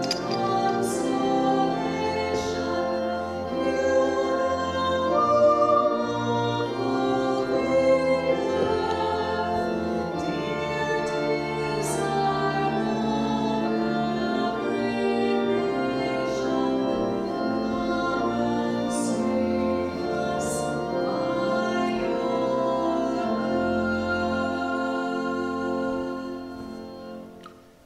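Offertory hymn: church organ accompanying a woman singing, with held notes and chords, fading away near the end.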